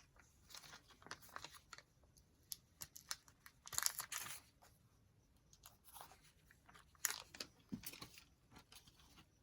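Faint rustling and crinkling of paper being handled, with small clicks and taps; the rustling is louder about four seconds in and again about seven seconds in.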